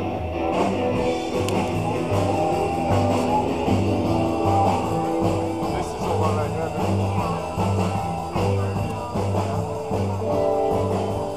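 Background rock-and-roll music with guitar over a steady, repeating bass beat.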